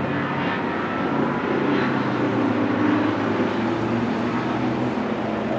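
Sports car engines running at speed on a road course, a white Porsche 911 with a second car close behind. The engine note is steady and grows a little louder as the cars come nearer.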